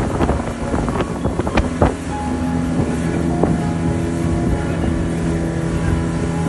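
Motorboat engine running at speed while towing, with wind buffeting the microphone.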